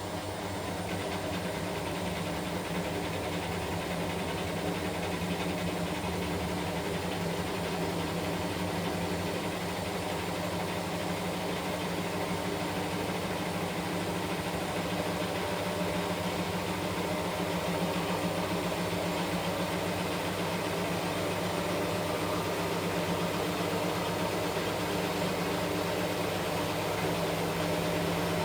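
Washing machine running, a steady mechanical hum and whir that grows slowly louder.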